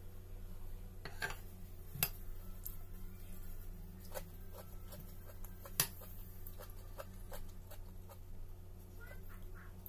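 Eating sounds: a metal fork clicking against a ceramic plate and lifting food to the mouth, with chewing, as a dozen or so short, sharp clicks at uneven intervals, the loudest about 2 s and about 6 s in. A steady low hum runs underneath.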